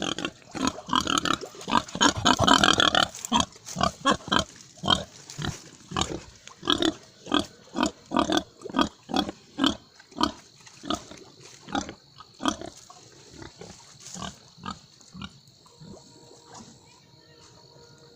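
Pigs grunting over and over in short bursts, a loud dense flurry about two seconds in, then a regular run of about two grunts a second that thins and fades in the last few seconds. A steady high-pitched tone sounds through the second half.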